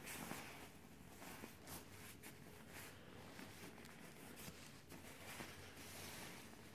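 Faint rustling and swishing of shiny nylon down jackets being squeezed and stroked by hand, in several short rustles.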